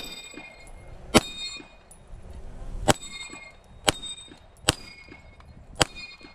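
Six pistol shots fired about a second apart at steel targets, each followed by the metallic ring of a steel plate being hit.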